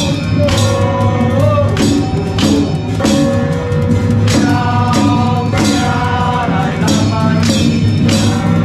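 Music with singing over a steady percussion beat.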